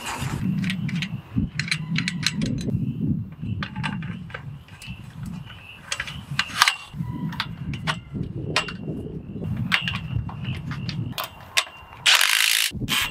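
Light metal clicks and knocks of galvanized kennel pipe and pipe fittings being handled and fitted together. Near the end, a cordless impact wrench hammers a fitting bolt tight in one short burst of about a second.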